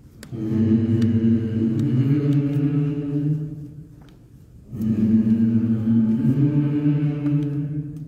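Choir chanting a slow melody in two long phrases, with a pause of about a second between them.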